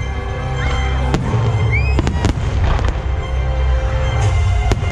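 Aerial fireworks exploding: several sharp bangs over a deep, continuous rumble, with music playing throughout.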